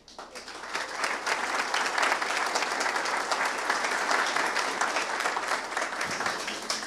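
Audience applauding, building up over about a second, holding steady, and fading out near the end.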